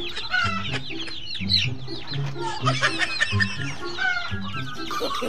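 A flock of young chickens cheeping constantly in many quick, high, downward-sliding calls, over background music with a low repeating bass line.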